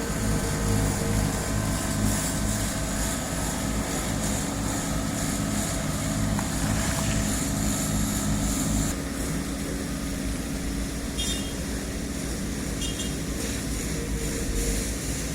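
Heavy diesel engines of asphalt-paving machinery running steadily with a low hum. The sound changes and drops a little about nine seconds in, and two short high beeps follow.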